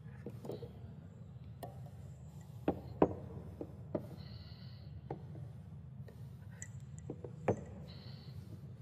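Scattered clinks and knocks of cups, saucers and a milk pitcher being handled and set down on a barista's counter, the sharpest about three seconds in, over a steady low hum. Two short high-pitched tones sound, one about four seconds in and one near the end.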